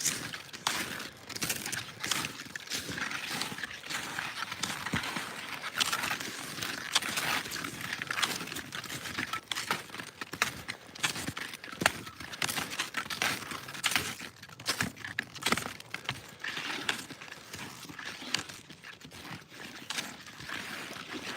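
Skis and ski poles crunching and scraping on snow while skiing, an irregular run of crunches and clicks.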